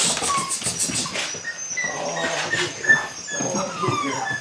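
Belgian Malinois puppy giving short high whines and yips while chasing a rag toy, with scuffing of the rag on concrete in the first second or so.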